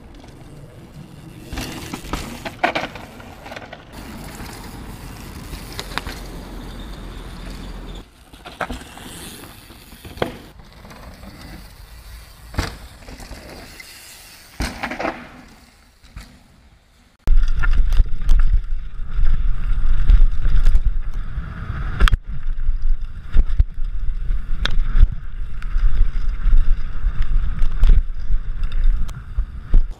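Downhill mountain bikes on a dirt trail: first a rider's tyres on dirt with scattered knocks as the bike lands, then, about halfway through, loud wind rumble on a mic mounted on the bike at speed, with constant rattling and clattering from the bike over rough ground.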